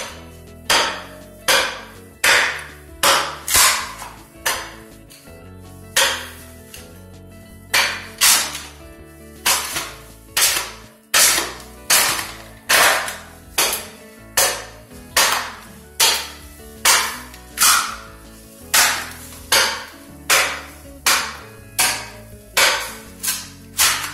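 A steel mattock (talacho) swung down again and again into water-damaged wood floor planks, chopping and prying them loose: sharp strikes about every three-quarters of a second, with a brief pause about five seconds in.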